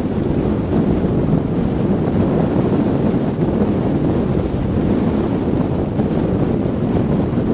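Steady wind buffeting the microphone on open water, with the rush of choppy waves beneath it.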